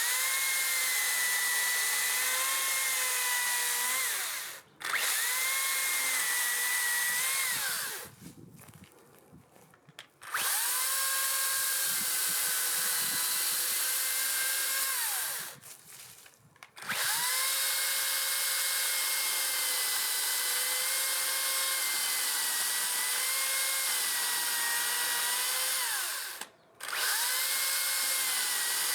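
Makita brushless cordless chainsaw running in five bursts with short pauses between, cutting into a tree stump: a steady electric-motor whine over the hiss of the chain. Each burst winds down with a falling whine when the trigger is released.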